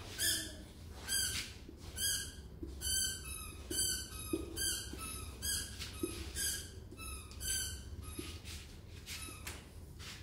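Whiteboard marker squeaking against the board as it writes: a run of short, high squeaks, about one to two a second, one for each stroke, growing fainter near the end.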